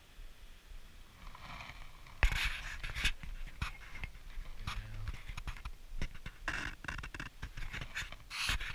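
Handling noise on a body-worn action camera: a hand knocking and rubbing against the camera, an irregular run of sharp knocks and scraping with the loudest knock about two seconds in.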